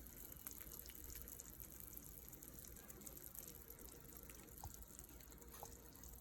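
Near silence: faint steady room hiss with a few soft ticks.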